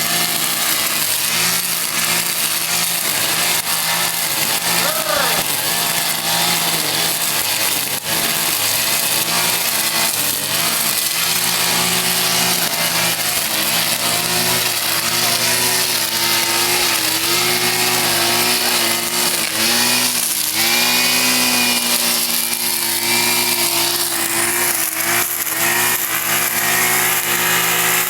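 Brush cutter engine running through a test run after repair, mostly at steady revs, dipping and picking up again briefly about twenty seconds in.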